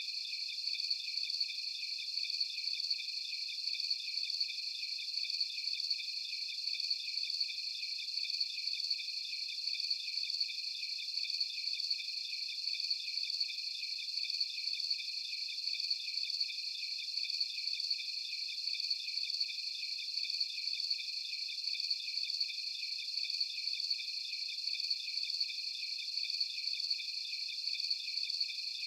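Night chorus of crickets chirping steadily, several overlapping high-pitched trills pulsing without pause, with no low sound beneath them.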